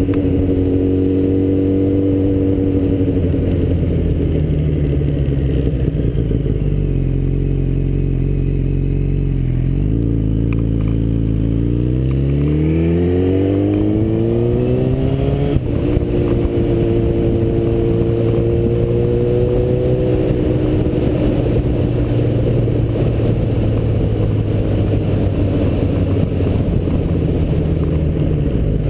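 Yamaha FZ1 sport motorcycle's engine, heard from the rider's helmet over the rush of wind. The engine note sinks as the revs fall, climbs again as it accelerates, and about fifteen seconds in there is a quick gear change with a short thump. After that it runs at a steady cruise.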